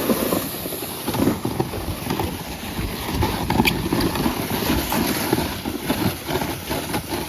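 Footsteps crunching and a loaded sled scraping as it is pulled over a trail of wet snow and dirt, with an uneven, walking rhythm.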